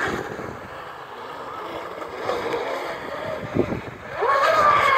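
Radio-controlled fast electric model boat running across the water: a steady motor-and-propeller whine with spray hiss. About four seconds in it swells into a loud, high whine that dips slightly in pitch as the boat passes.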